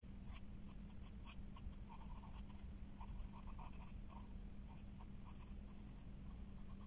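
White pencil scratching on black sketchbook paper in many short, quick strokes, shading a drawing, with a steady low hum underneath.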